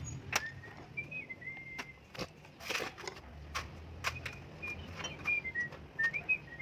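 A person whistling a tune in held notes that step up and down, over scattered sharp clicks and knocks.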